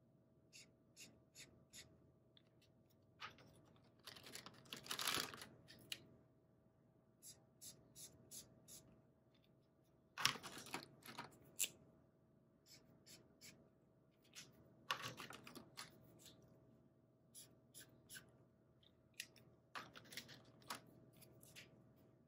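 Felt-tip markers being used on paper: faint small clicks of caps and marker barrels being handled, and several short scratchy spells of marker tips scribbling colour onto paper.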